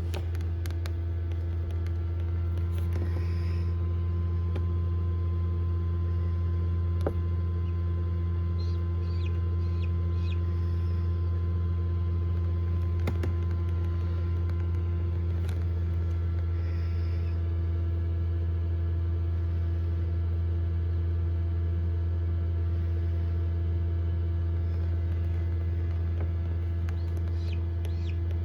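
Steady low hum of an egg incubator running, with a few faint, short peeps from a hatching chick now and then.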